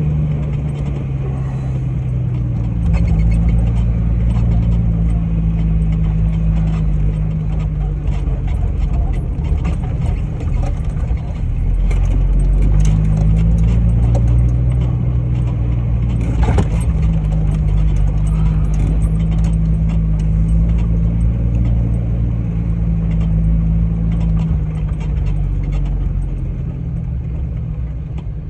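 Jeep engine running under load while driving off-road, its pitch rising and falling with the throttle, with clicks and rattles over it.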